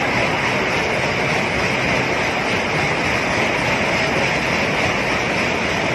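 Carnival ride's cars running round on their elevated steel track: a steady, continuous rolling noise.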